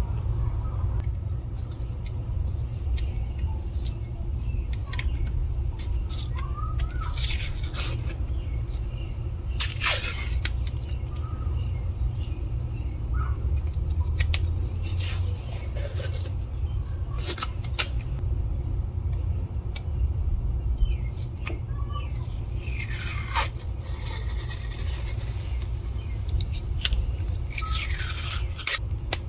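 Irregular short scraping strokes against an ash hammer handle as wood stain is worked onto it, over a steady low hum.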